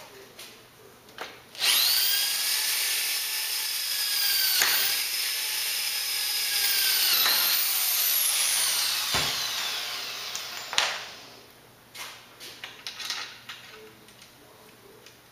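Power drill boring through the square aluminium tubing and corner connector of a trailer frame: the motor whine starts suddenly a couple of seconds in, dips twice as the bit bites, then winds down and stops with a sharp knock about eleven seconds in. Light clicks and knocks of parts being handled follow.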